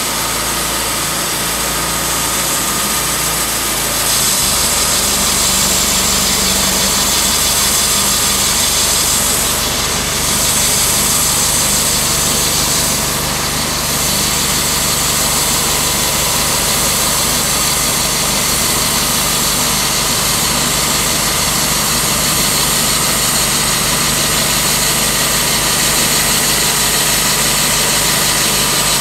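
Timberking B-20 portable sawmill's gasoline engine running steadily, stepping up in level about four seconds in.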